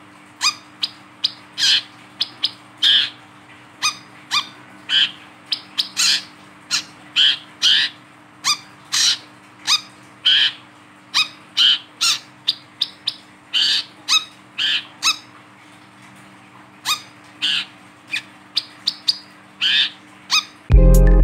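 Male brown-throated sunbird (kolibri kelapa) calling: short, sharp, high chirps repeated at about one or two a second, with a pause of a second or so past the middle. Electronic music comes in right at the end.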